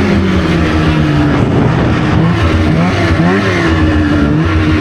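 Polaris RMK 700 snowmobile's two-stroke engine running hard at the end of a short race, its pitch easing off a little and wavering with the throttle, over steady wind and track noise.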